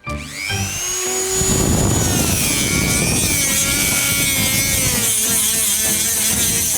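Dremel-type high-speed rotary tool spinning up with a rising whine, then running at speed with a rough grinding noise and a wavering whine as it cuts into LEGO plastic.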